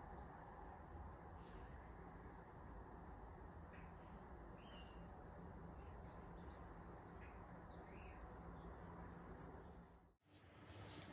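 Near silence: steady low room tone with a few faint, short bird chirps. The room tone drops out briefly near the end.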